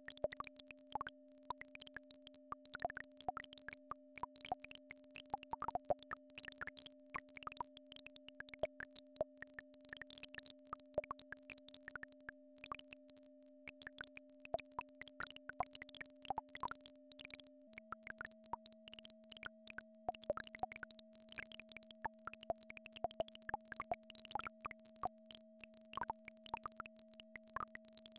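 Two steady electronic tones held together, one low and one higher, that step to a new pair of pitches about two-thirds of the way through: the low one drops and the high one rises. Under them runs a scatter of quick, irregular plops and clicks.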